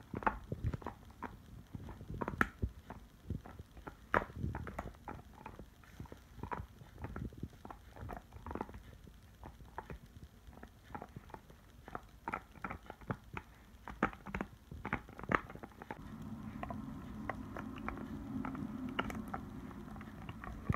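A Doberman chewing a hard rubber-and-nylon chew bone held in a person's hand: irregular clicks and crunches of teeth biting and scraping on the toy. A low steady hum joins in over the last few seconds.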